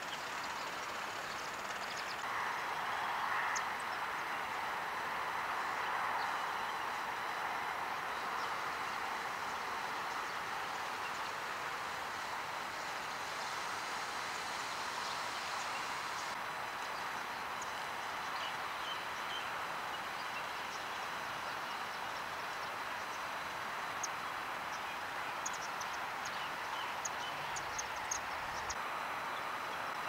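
Steady outdoor rushing noise, a little louder in the first few seconds. Near the end come a few short, high chirps from small birds.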